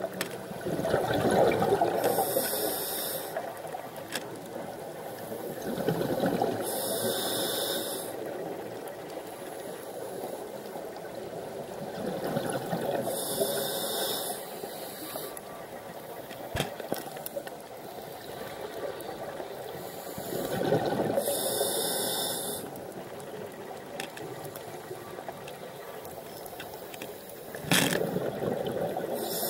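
Scuba regulator breathing underwater: a hissing inhalation about every six to seven seconds, about five in all, with a rush of exhaled bubbles around each breath. A sharp click near the end.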